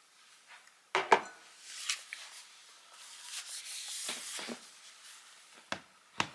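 Small objects being handled at close range: two sharp knocks about a second in, a few seconds of rustling and scraping, then two more sharp knocks near the end.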